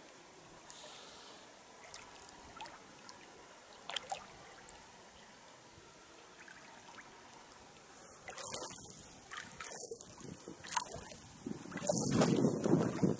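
Water splashing and trickling as a person shifts about while sitting in shallow water. It is faint at first, with louder splashes in the last few seconds and a low rumble of wind on the microphone near the end.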